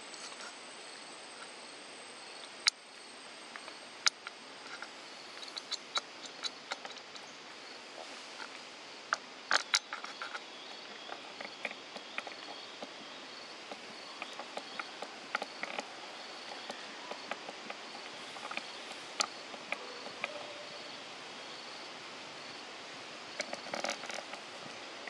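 Outdoor forest ambience: a steady hiss with insects buzzing and chirping, a thin high insect drone fading out about four seconds in. Scattered sharp clicks and ticks, a quick pair about ten seconds in and a cluster near the end.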